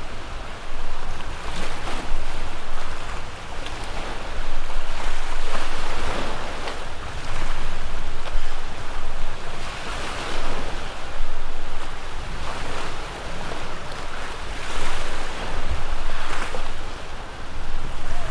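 Surf washing and splashing against jetty rocks, swelling and easing every couple of seconds, with wind rumbling on the microphone.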